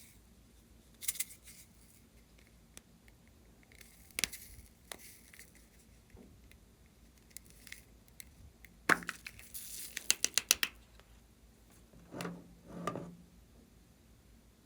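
Small crisp clicks and taps from handling slime-making items, with a quick run of about a dozen clicks in the middle and two soft rustles near the end.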